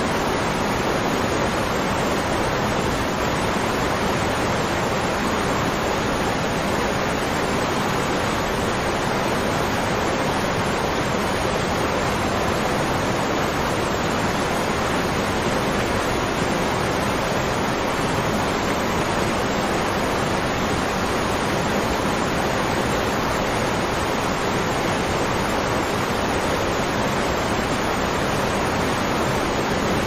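A waterfall rushing: a steady, even noise of falling water with no breaks or changes in level.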